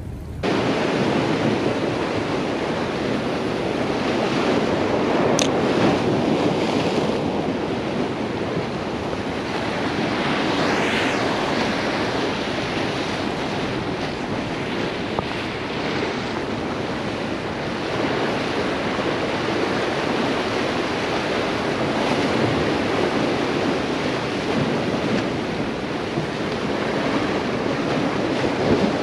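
Rough ocean surf breaking and washing over the rocks of a jetty: a steady rushing noise.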